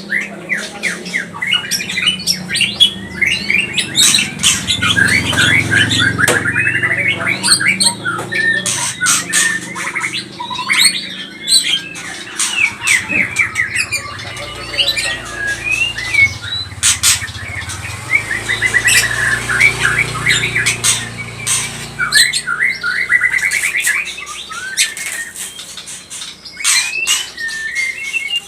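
White-rumped shama (murai batu) calling excitedly: fast rattling chatter and trills, broken by sharp clicks.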